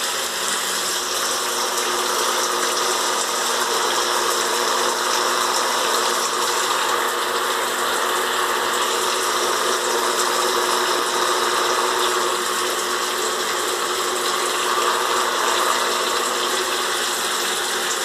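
FAME electric shower running: water spraying with a steady electrical hum over it, loud and unbroken. The shower 'snores' like a welding machine, a droning that the owner takes for a defect.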